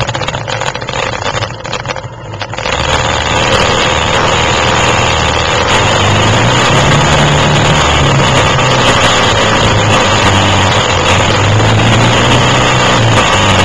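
Quad (ATV) engine running off-road. It is quieter and uneven at first, then about two and a half seconds in it grows loud and stays loud, its pitch rising and falling as the throttle changes.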